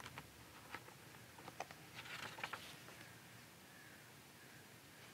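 Near silence: room tone with a few faint soft clicks in the first two seconds and a brief faint rustle about two seconds in.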